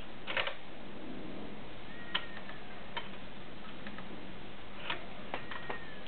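A few scattered light clicks and two faint short squeaks over steady background hiss: a Kenmore sewing machine being handled and set up for sewing thick denim, not yet running.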